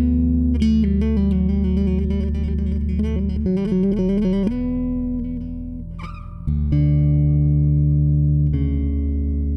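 Fender Squier Jaguar electric bass played solo. It holds low notes, then plays a quick run of notes and lets one note ring and fade. About six seconds in there is a sharp snap, then another note is held.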